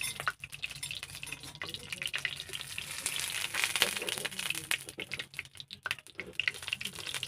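Hot oil sizzling and crackling in the wells of a multi-cup cake pan over a wood fire, with irregular crackles as the wells are worked with a brush.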